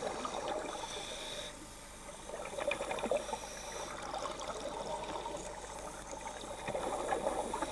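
Scuba divers' exhaled air bubbling and gurgling underwater, a continuous crackly rush with small pops.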